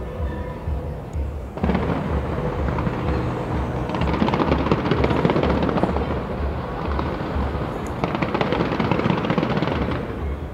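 Fireworks going off in a dense run of rapid crackling bangs, starting about a second and a half in and heaviest in two spells, over music with a steady bass beat.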